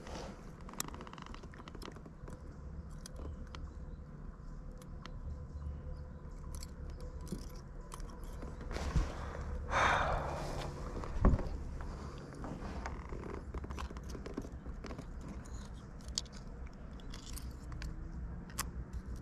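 Close handling noise from an angler in a kayak dealing with a freshly caught pike: scattered clicks, scrapes and knocks over a low steady rumble. About ten seconds in there is a short, louder rush of noise, followed a second later by a sharp knock.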